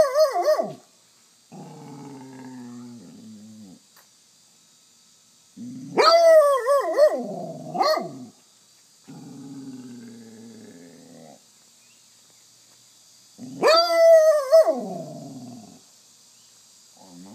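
Basset hound baying: three loud, drawn-out calls that rise and fall in pitch, spaced about seven to eight seconds apart. Each is followed by a lower, quieter drawn-out call.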